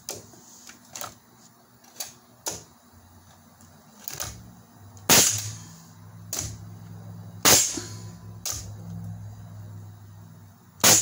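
Ridgid pneumatic nailer firing nails into wood blocks: three sharp shots, about five seconds in, two seconds later and near the end, the last the loudest. Lighter clicks and knocks come between the shots, with a low steady hum underneath through the middle.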